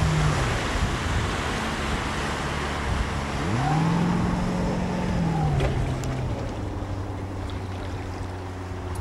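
Motorboat engine running at speed across open water, its note rising and then falling away midway, under heavy wind rush on the microphone.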